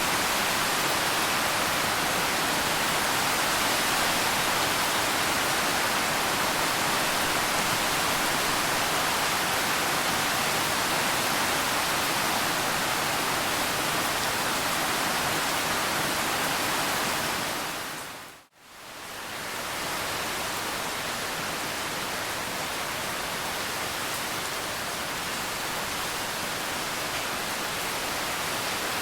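Steady, dense rain hiss. About two-thirds of the way through it fades out to a moment of silence and fades straight back in.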